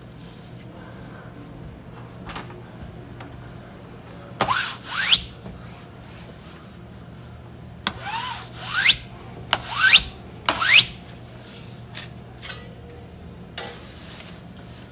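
Cloth rubbing across shiny foil-like vinyl wallpaper, squeaking in short upward-gliding squeals: two about a third of the way in, then a quick run of four or five past the middle.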